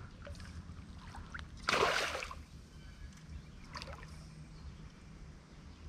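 Creek water trickling, with one short, loud splash about two seconds in and a few faint small splashes later.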